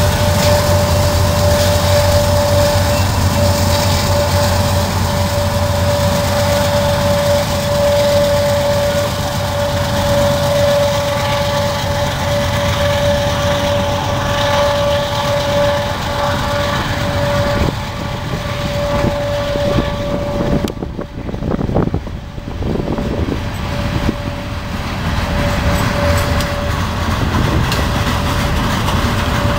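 BNSF freight train passing close by: the diesel locomotives running at first, then covered hopper cars rolling past on the rails, with a steady high tone over the rumble. The sound dips briefly about two-thirds of the way through.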